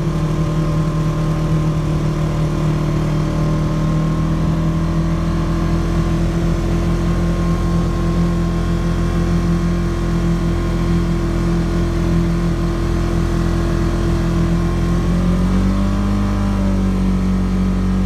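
Polaris RZR side-by-side's engine running steadily while driving in four-wheel drive, rising in pitch about fifteen seconds in as it speeds up.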